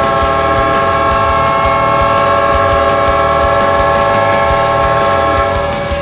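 Winnipeg Jets goal horn: a loud, steady multi-tone air-horn blast like a train horn, with an air-raid siren layered in. Right at the end the tones sag in pitch and die away. Low thumps pulse steadily beneath it.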